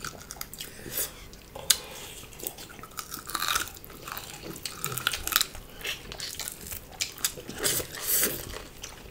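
Mouth sounds of eating: chewing mouthfuls of rice and beef eaten by hand, with irregular wet smacks and clicks.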